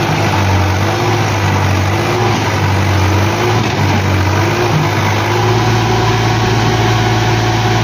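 Farm tractor's diesel engine running under heavy load, pulling a fully loaded trolley hard enough that its front wheels lift off the ground. It runs steadily, with gentle rises and falls in pitch.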